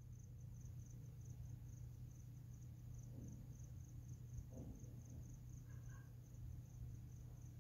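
Faint insect chirping, a high-pitched trill pulsing about five times a second without a break, over a low steady hum.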